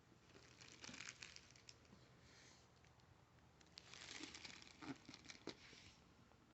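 Faint crinkling and tearing of plastic shrink wrap being peeled off a boxed vinyl record set, in two spells: one about a second in and a longer one from near four seconds in, with a few small sharp crackles.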